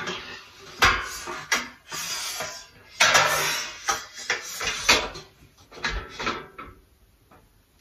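Steel shelf of an IKEA Råskog trolley clanking and scraping against the trolley's metal frame as it is fitted into place, in an irregular run of knocks and rattles that stops near the end.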